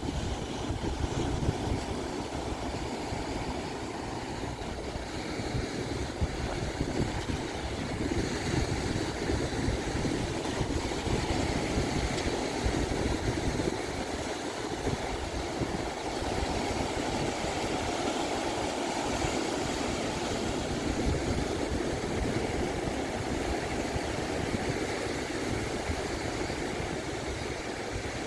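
Pacific Ocean surf washing onto a sandy beach in slow swells of hiss, with wind buffeting the microphone as a gusty low rumble.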